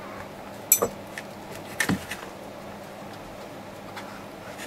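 Handling of a handheld digital multimeter on a workbench: two sharp clicks about a second apart, with a few fainter ticks, over a faint steady hum.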